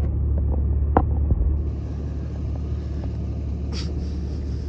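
Jeep Cherokee engine idling, a steady low rumble, with a short click about a second in.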